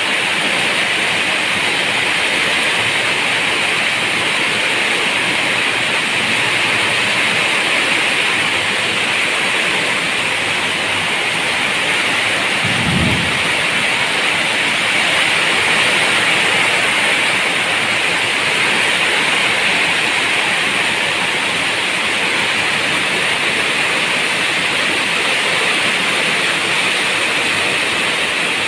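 Steady rain falling, with a brief low boom of thunder about halfway through.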